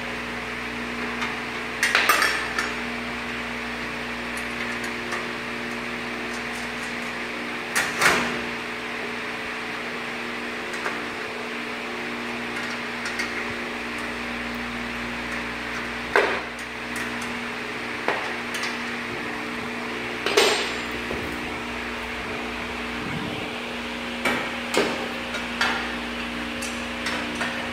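Sharp metallic clanks and taps, a few seconds apart with a quick cluster near the end, as the steel frame pieces of a corn mill stand and a wrench are handled and bolted together, over a steady background hum.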